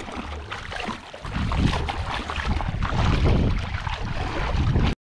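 Wind rumbling on the microphone over the sound of the sea, with scattered crackle and splashing; the sound cuts out for a moment near the end.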